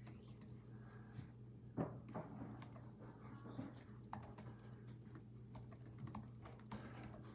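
Faint typing on a computer keyboard: irregular key clicks, the loudest about two seconds in, over a steady low hum.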